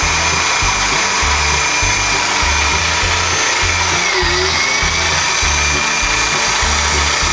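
Small electric food processor running steadily, its motor whining as it blends canned pork and beans into a dip; the whine dips in pitch briefly about four seconds in. Background music with a steady bass line plays underneath.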